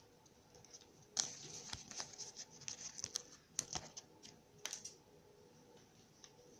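Hands handling a Kinder Surprise egg and its contents: a run of crinkles and sharp clicks starting about a second in and stopping after about four seconds.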